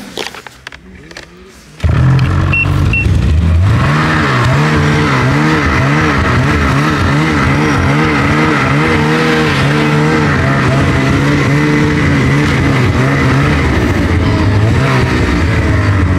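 Snowmobile engine running hard as the sled is ridden through snow, its pitch rising and falling over and over as the throttle is worked. It comes in loud suddenly about two seconds in, after a quieter start.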